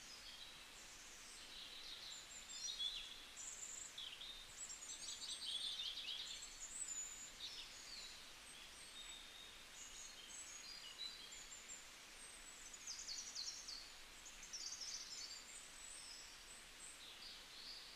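Faint birdsong: many short, quick chirps and twitters high in pitch, over a soft even hiss.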